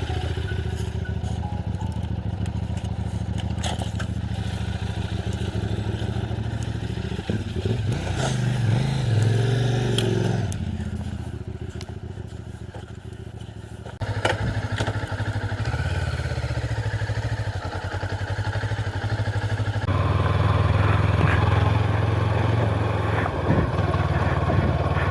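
Macbor Montana XR5 510 motorcycle engine running while riding off-road. The revs rise about eight seconds in, ease off and go quieter for a few seconds, then the engine pulls harder again near the end.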